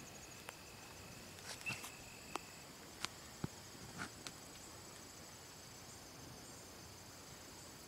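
Steady, high-pitched chirring of insects in the grass, with a few sharp clicks and rustles of handling in the first half. A thin high tone stops about two and a half seconds in.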